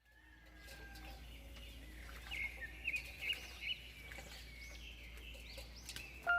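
Birds chirping: a series of short, high, quick calls, most of them bunched between about two and four seconds in, over a faint low steady hum.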